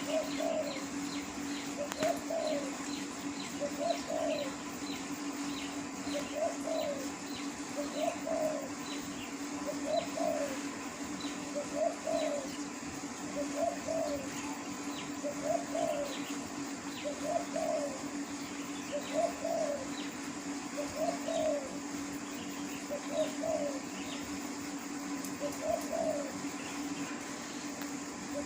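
Spotted dove cooing, repeating its short multi-note coo phrase every one and a half to two seconds. A steady low hum runs underneath, with faint high chirps or ticks through the first half.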